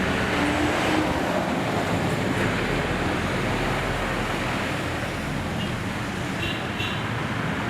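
Steady rushing noise with no clear single event in it.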